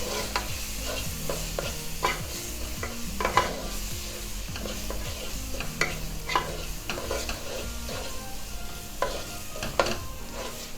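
Spoon or spatula stirring and scraping a thick onion-tomato masala in a pan as chilli, coriander and turmeric powders fry in it, with a light sizzle under irregular scraping strokes.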